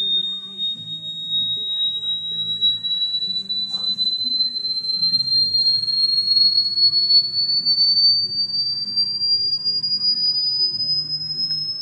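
A steady, high-pitched whistle-like electronic tone that climbs slowly and evenly in pitch, like a frequency sweep, over faint low background sound. A brief click about four seconds in.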